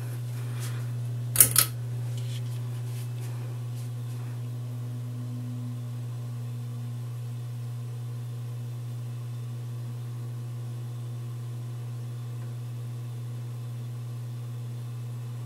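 2003 SMC 36-inch ceiling fan motor running with a steady low hum, which the owner puts down to a worn-out motor and poor capacitors. A sharp double click comes about a second and a half in.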